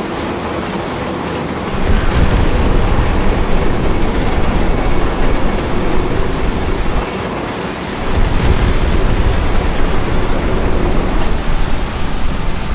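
Heavy demolition rumbling as a demolition excavator brings down a massive silo. The rumble comes in two long surges, the first starting about two seconds in and the second about eight seconds in, over a steady noisy din.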